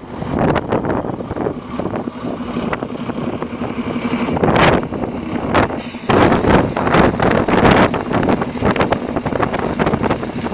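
Gusty wind buffeting the microphone, over the steady hum of road traffic, with a short sharp hiss about six seconds in.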